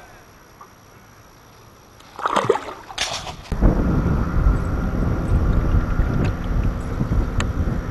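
A golden perch let go into the water with a splash about two seconds in, and another sharp splash just after. Then a loud, steady, low rumbling noise with a faint high whine.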